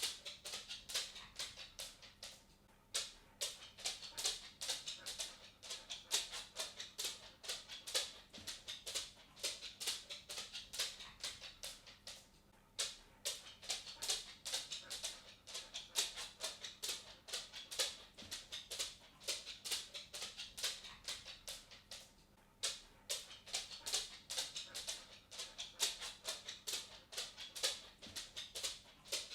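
Cat walking: a quick run of light ticks and taps from its footsteps, several a second, with a short pause about every ten seconds.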